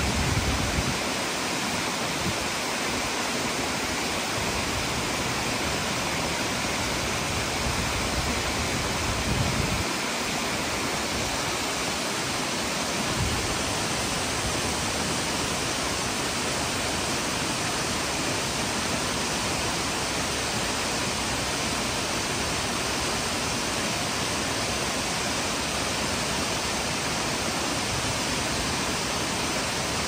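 Steady rushing of a tall waterfall, an even hiss of falling water. A few brief low rumbles rise under it in the first half.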